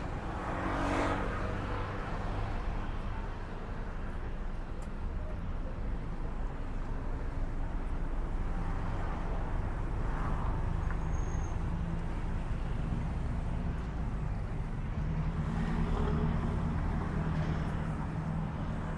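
Road traffic: a steady low hum of car engines, with vehicles passing louder about a second in, around ten seconds in and again around sixteen seconds.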